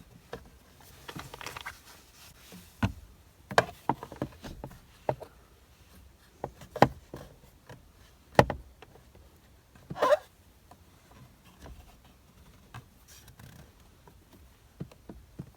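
Screwdriver tip clicking and tapping against the airbag retaining spring and the steering wheel's plastic while probing blindly for the clip: irregular sharp clicks and knocks with short scrapes.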